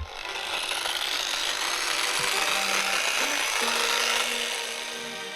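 Power sander with a glass-specific abrasive disc grinding car windscreen glass: a steady, hissy rasp that eases off near the end.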